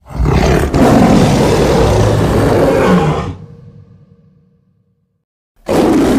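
A deep, gritty monster roar that runs about three seconds and then fades away, followed by silence and the start of another roar near the end.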